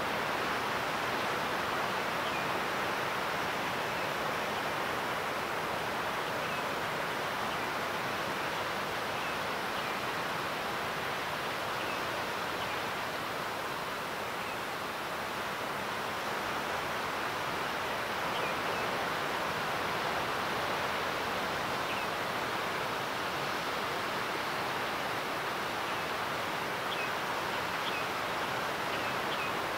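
Steady rushing background noise with a few faint, high chirps scattered through it.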